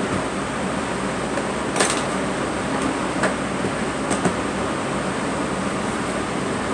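Steady mechanical background noise, like an air conditioner or a vehicle interior, with one short sharp sound about two seconds in and two fainter ones a little later.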